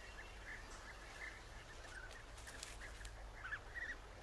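European bee-eaters calling: faint, short calls repeated two or three times a second.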